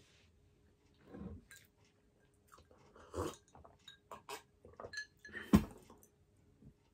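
Close-up eating sounds: mouth noises and chewing, then sips and swallows from a glass. Near the end comes a single sharp knock, the loudest sound, as the glass is set down on the table.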